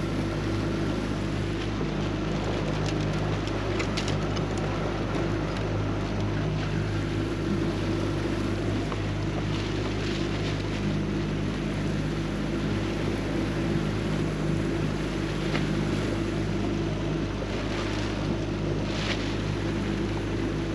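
Boat motor running steadily at cruising speed, a constant low engine drone with wind and water rush, and a few light knocks on the boat.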